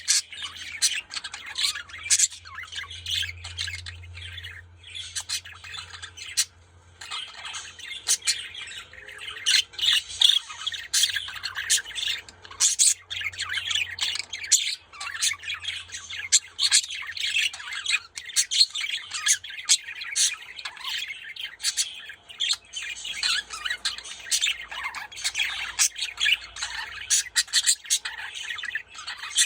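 Budgerigars chattering and squawking: a continuous stream of rapid, scratchy chirps and sharp clicks, with a brief lull about six seconds in.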